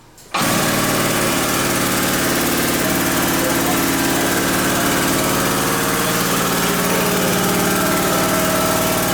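Yamaha Tricity 125 scooter's single-cylinder four-stroke engine running at a steady idle, starting abruptly about a third of a second in.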